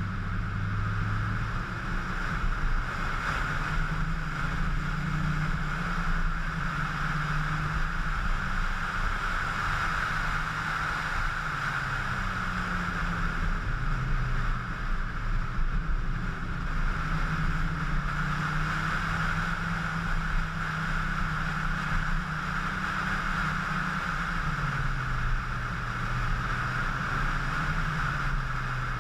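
VW Golf GTI Mk2 8V's 1.8-litre four-cylinder engine running under way, its low drone shifting up and down in pitch several times with throttle and gear changes, under a steady rush of wind and road noise.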